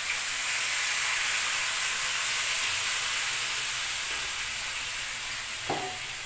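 Liquid poured from a bottle onto duck pieces in a hot aluminium wok sets them sizzling, loudest at first and slowly dying down.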